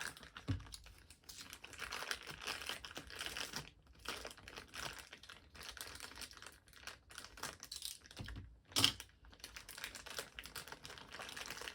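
Plastic packaging crinkling and rustling as it is handled, with small clicks and taps of plastic parts, and one louder knock about three-quarters of the way through.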